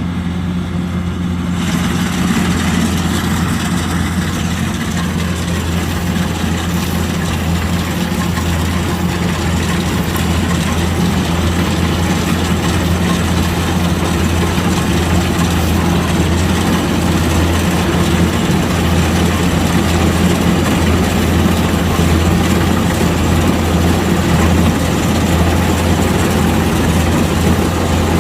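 Kubota DC-105X combine harvester's diesel engine running steadily with a low drone. A broader rush of machinery noise comes up about two seconds in and keeps on alongside it.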